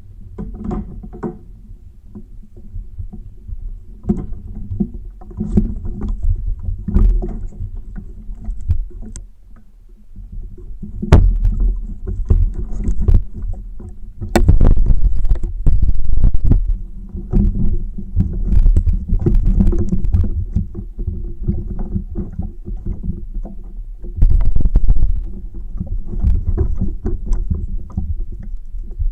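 Irregular knocks, thumps and rattles on the hull of a Wilderness Systems Recon 120HD fishing kayak over a low rumble, thickest and loudest from about a third of the way in to near the end.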